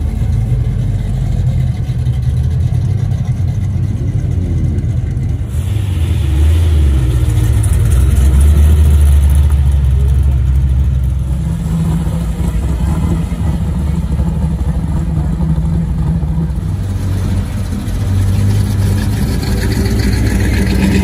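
Car engine running with road noise while driving, its pitch rising and falling, loudest a little before the middle.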